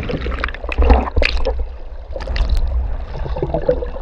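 Underwater sound heard through a GoPro's waterproof housing just after a jump into the sea: a muffled low rumble of churning water with bubbling and crackling.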